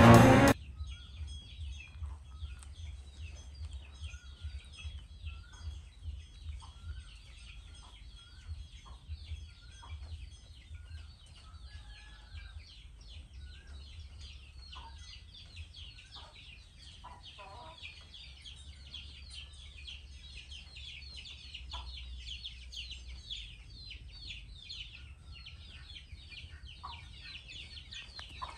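Animal calls: a dense, continuous stream of quick, high, falling chirps, with scattered lower short calls every second or so, over a low rumble.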